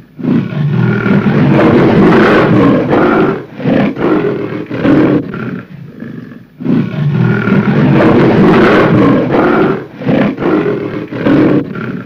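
Lion roaring: two long, loud roars of about three seconds each, with shorter roars between and after them.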